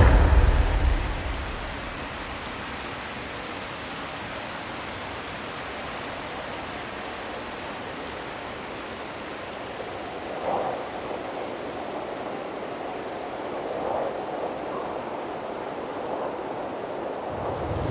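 Steady rushing water noise, even and hiss-like, with a loud low rumble in the first second.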